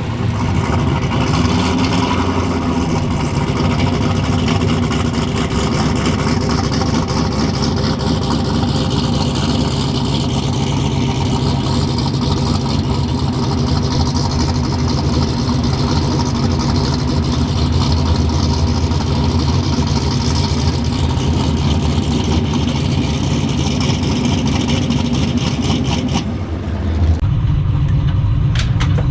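A car engine running at low, steady revs with a slightly wavering tone. A little before the end the sound changes abruptly to a duller, deeper engine note.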